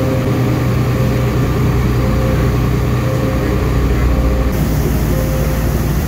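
Boat engine running steadily at speed: a low, even hum with hiss above it. The hiss gets louder about four and a half seconds in.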